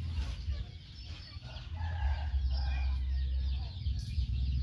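Domestic chickens clucking, with a rooster crowing, over a low steady rumble.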